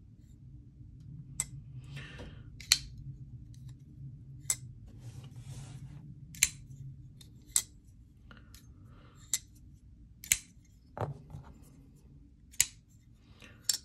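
Sharp By Design Mini Tempest frame-lock folding knives being flicked open and snapped shut by hand: about ten sharp metallic clicks, a second or two apart, with soft handling rustle between. The clicks are the blades breaking free of the detent and locking or seating, which is being tested for how crisply each knife snaps.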